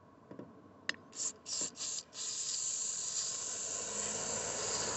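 WD-40 aerosol can spraying through its straw: a click, then three short bursts of hiss about a second in, then one long continuous spray.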